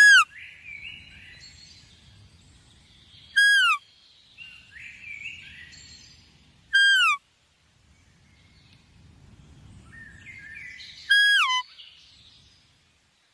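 A bird calling loudly four times, each call a short held note that falls in pitch at its end, with fainter chirping between the calls.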